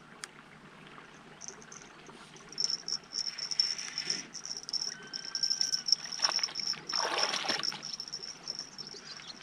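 A hooked bream splashing at the surface in shallow water as it is drawn to the bank and taken by hand: a first splash about three seconds in, then louder splashing a few seconds later.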